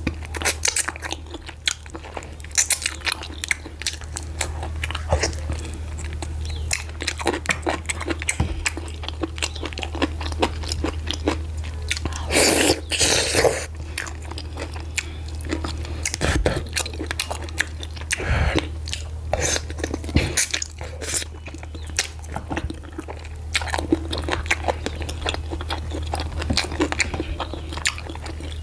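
Close-miked eating of ogbono soup with meat and garri fufu: steady wet chewing and biting with many small mouth clicks, over a low steady hum. A louder stretch of chewing comes about twelve seconds in.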